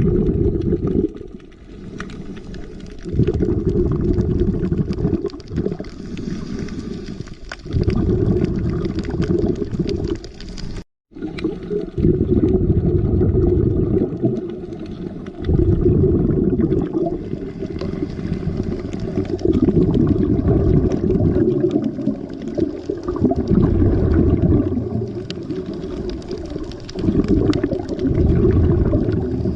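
Muffled underwater sound of scuba divers exhaling through their regulators: bubble rumbles that swell and fade every few seconds, with the sound cutting out briefly at an edit about eleven seconds in.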